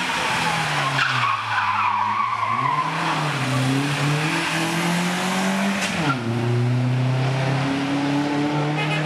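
Rally car engine revving hard through the gears on a tarmac street stage, its pitch climbing and falling with each gear change and dropping sharply about six seconds in before picking up again. The tyres squeal briefly about a second in.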